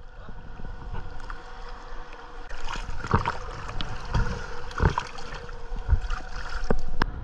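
Water splashing and sloshing against the stern of a small boat, with several dull knocks against the hull and boarding step as a diver climbs out, and one sharp click near the end.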